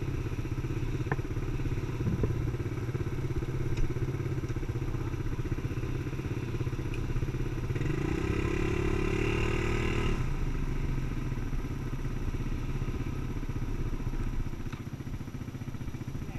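ATV engine idling steadily; about halfway through the engine sound swells louder and brighter for about two seconds, then settles back, and it quietens a little near the end.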